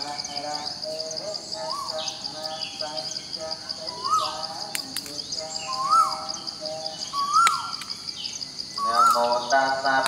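Nature ambience: insects trilling steadily with a fast pulse, and a repeated animal call that rises and falls in pitch every second or two.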